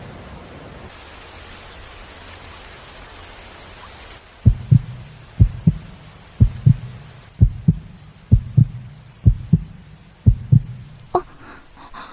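Rain falling steadily, then from about four seconds in a heartbeat sound effect: seven low double thumps (lub-dub), about one a second, over fainter rain. It is the cartoon sign of a racing, flustered heart.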